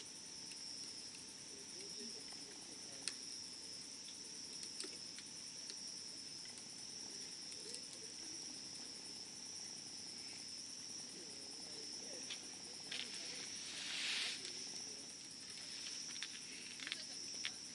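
Wood campfire crackling with scattered sharp pops, over a steady high-pitched insect chorus. About three-quarters of the way through there is a brief louder hiss from the fire.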